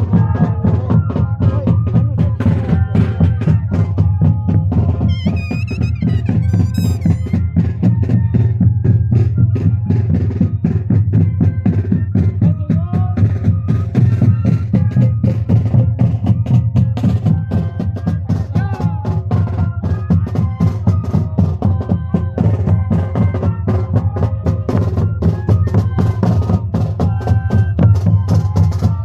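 Moseñada band music: a group of moseño cane flutes playing a held, droning melody over steady bass drum and snare beats. About five seconds in, a brief high wavering tone sounds above the band.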